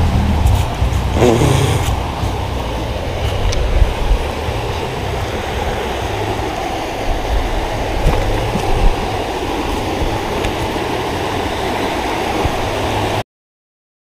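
Steady rush of river water running over a shallow rocky riffle, over a fluctuating low rumble. It cuts off abruptly near the end.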